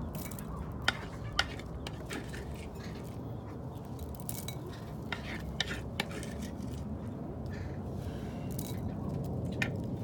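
Blue-eared pheasant pecking food off a wooden board and dish: scattered sharp taps and clicks of its beak, irregular and a few seconds apart, the loudest two about a second in.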